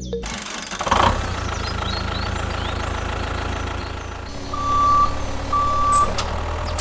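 A vehicle engine running with a steady low rumble, louder about a second in. Near the end there are two short beeps of the same pitch, about a second apart, like a reversing alarm.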